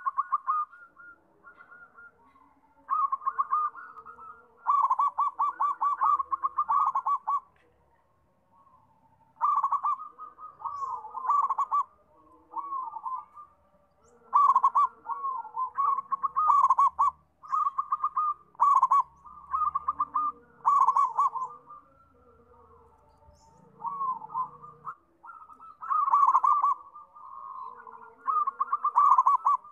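Zebra dove singing: repeated phrases of quick, rolling coos, each phrase lasting one to three seconds with short pauses between.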